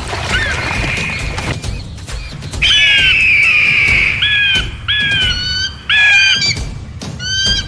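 African fish eagles calling while they fight: high, ringing yelps that fall in pitch, one long call about two and a half seconds in followed by several short ones about a second apart, over repeated sharp slapping noises.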